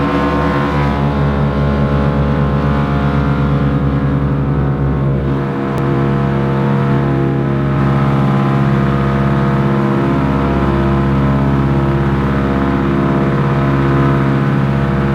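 Ford Trimotor's radial engines running steadily, heard loud from inside the aircraft.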